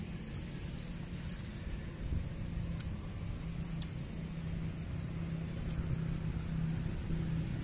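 A steady low rumble with a droning hum, like a motor or engine running, slightly louder in the second half, with a few faint sharp ticks.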